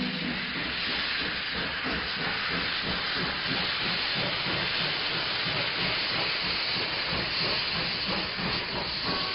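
Valley Railroad steam locomotive passing close by, with a steady loud hiss of steam venting around its cylinders and driving wheels.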